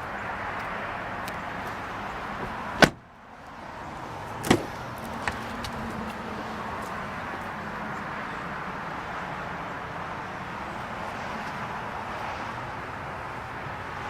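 A 2012 GMC Yukon Denali's door shuts with one loud thump about three seconds in, then a door latch clicks about a second and a half later, over steady outdoor background noise.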